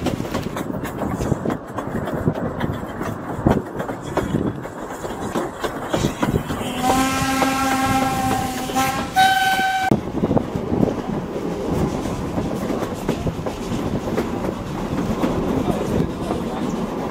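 A narrow-gauge steam locomotive's whistle sounds a long blast about seven seconds in, followed by a short one. Under it runs the steady rumble and clatter of the wooden coaches' wheels over the rail joints.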